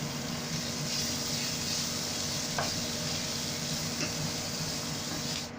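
Chopped choy sum stir-frying in hot oil: a steady sizzle with an occasional light tick of the spatula against the pan. The sizzle cuts off suddenly just before the end.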